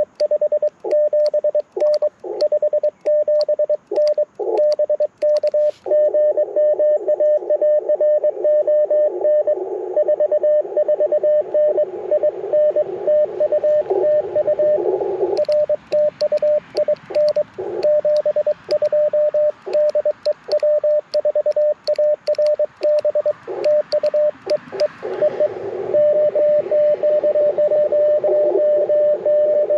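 Morse code on an Icom IC-705 transceiver, a single tone of about 600 Hz keyed in dots and dashes. Stretches of the operator's own sending on the clean sidetone, with light clicks from the twin-paddle key, alternate with stretches of another station's Morse heard through a band of receiver hiss.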